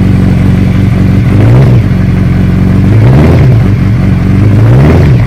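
2014 Suzuki Hayabusa's inline-four idling through a Two Brothers Racing slip-on exhaust, with three short throttle blips that raise the revs and fall back.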